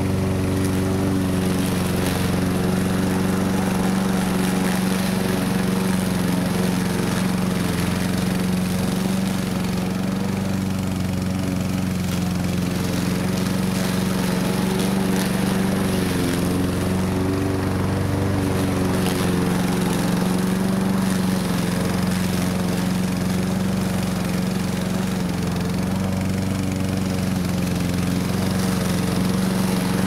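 Lawn mower engine running steadily at a constant speed, with no change in pitch or load.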